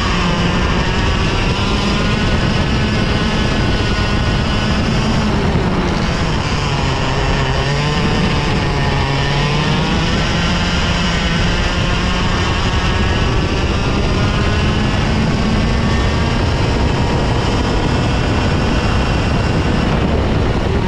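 Two-stroke Tag Cadet racing kart engine running hard, its revs rising and falling through corners, with a dip about eight seconds in before it climbs again.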